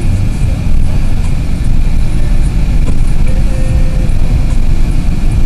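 Steady low rumble of a car driving along, heard from inside the cabin: engine, tyre and wind noise.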